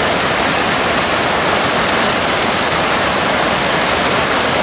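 Small mountain forest stream rushing and splashing over rocks and fallen logs, a steady, unbroken rush of water.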